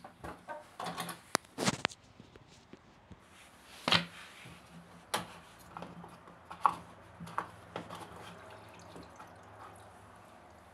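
Irregular sharp knocks and clicks from handling parts of a washing machine, the loudest about four and five seconds in, followed by softer taps and drips of water.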